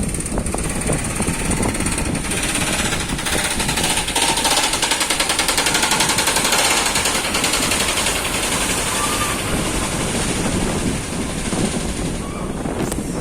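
A train running on the track with a fast, even clatter that is loudest in the middle, then eases off.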